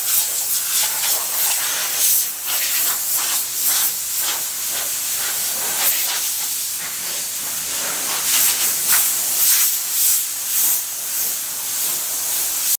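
Hand-held hose nozzle hissing as it is played over the car's front bumper and bonnet. The hiss keeps swelling and fading as the spray moves.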